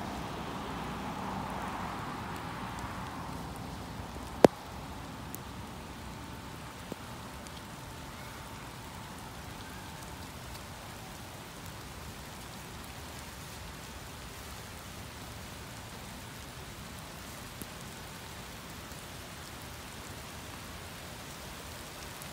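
Steady rain falling as a thunderstorm line arrives, an even hiss throughout, with one sharp click about four seconds in.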